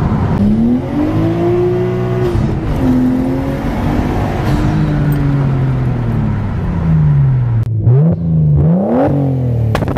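Nissan Skyline R33 GTS-T's turbocharged RB25DET straight-six, fitted with a Nismo exhaust, heard from inside the cabin pulling through the gears, its pitch rising and then dropping at each shift. Near the end the sound cuts abruptly to the engine being revved sharply up and down a few times, with a few short cracks from the exhaust's pops-and-bangs map.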